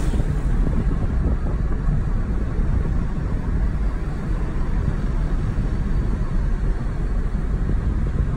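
Steady low rumble of engine and tyre noise heard inside a Mazda car's cabin while it drives along at a steady speed.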